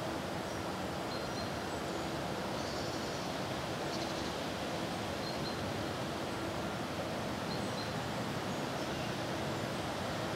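Steady outdoor background noise in a park, with a few faint, short high chirps scattered through it.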